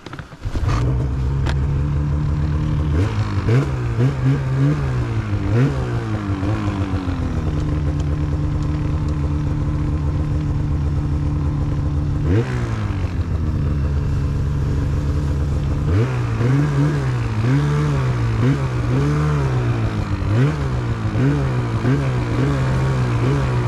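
Polaris two-stroke snowmobile engine starting up just after the start, then running with repeated throttle blips. Its pitch rises and falls again and again, about once a second near the end, as the sled is worked slowly through deep snow.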